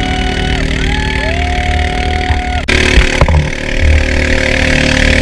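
A small engine running steadily at an even speed. In the first half a few smooth gliding tones sound over it; about halfway through the sound changes suddenly to a brighter, hissier one with a few sharp knocks.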